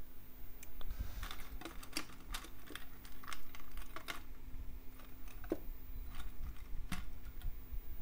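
Irregular light clicks and taps of handling noise from fingers holding a small transistor close to the microphone, thickest in the first half and sparser later. A faint steady hum lies beneath and stops about five and a half seconds in.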